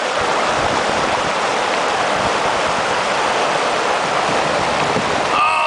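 River rapids: whitewater rushing steadily over rock ledges. Near the end a person's voice breaks in with a falling cry.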